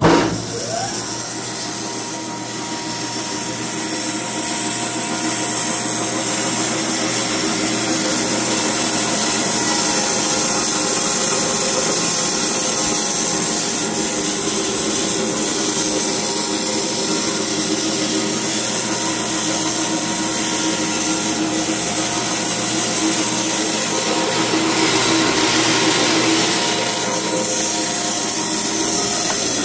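Hobart 6801 meat band saw switched on and running with nothing being cut: its 3 hp motor and gear drive run with a steady whir and blade hiss that builds up over the first few seconds as it comes up to speed. The saw is freshly reconditioned, with a new blade and new motor bearings and seals.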